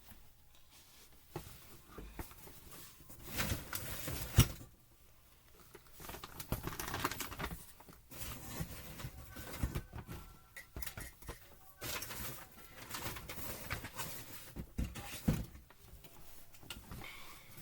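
Irregular rustling, clicks and knocks of vacuum cleaner attachments being taken out and handled.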